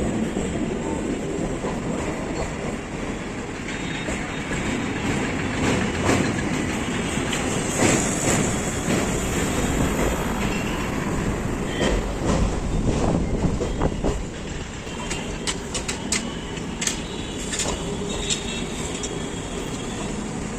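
Train running along the track with steady rumble and wheel clatter. Sharp knocks, typical of wheels crossing rail joints and points, come thicker in the second half, with a brief high wheel squeal about eight seconds in.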